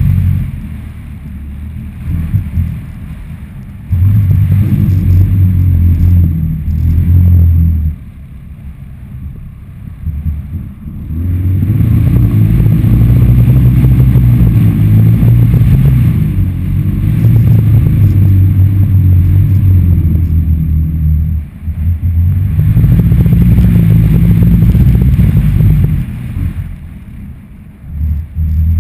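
Wind buffeting the microphone of a GoPro HD Hero2 carried aloft on a stunt kite: a loud low rumble that surges and drops as the kite swoops. It is quieter for a few seconds near the start, again about a third of the way in, and again near the end.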